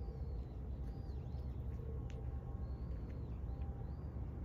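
Small birds calling in short, high, arched chirps, repeated every second or so, over a steady low rumble.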